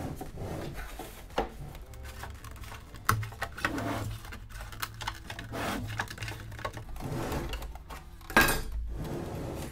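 Irregular clicks, taps and short scrapes of hand tools working on a plastic speaker cabinet during disassembly, with one louder scrape about eight and a half seconds in.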